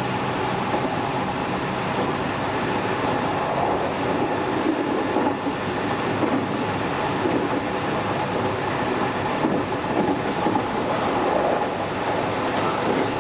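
JR West 207 series electric train car KuMoHa 207-1037 running on the line, heard from inside the car: steady whining tones from the Toshiba GTO inverter drive and traction motors over rumbling running noise, with wheels clacking over rail joints.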